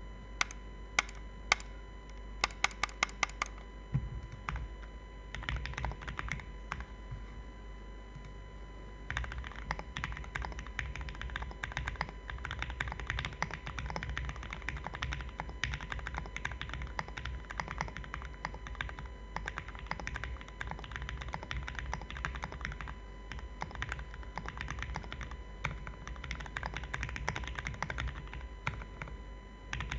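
Mechanical keyboard with lubed Gateron Pink linear switches, an FR4 plate and GMK keycaps in a sandwich-mounted acrylic case, being typed on. It opens with a few separate sharp clicks and sparse keystrokes, then settles into steady fast typing from about nine seconds in.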